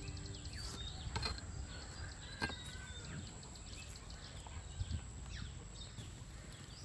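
Chickens peeping in short, scattered falling chirps, with a few light knocks among them.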